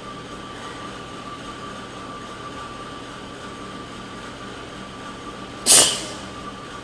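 A single sharp sneeze from a person with a cold, about three-quarters of the way in, echoing briefly off bathroom walls. Under it, a steady air-conditioner hum with a thin steady tone.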